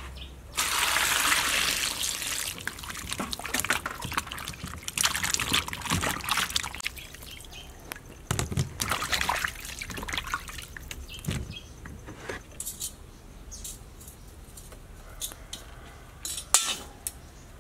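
Water pouring and splashing for about two seconds, followed by scattered knocks, clicks and rustles of dishes and food being handled.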